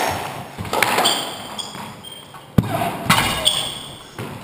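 Squash rally: the ball is struck by rackets and smacks off the walls in several sharp hits, the loudest about two and a half seconds in, with sports shoes squeaking on the wooden court floor between shots.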